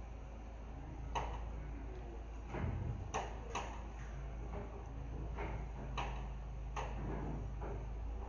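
Takeuchi mini excavator's diesel engine running steadily, with about half a dozen sharp clicks and knocks at irregular intervals as the machine works its boom and bucket.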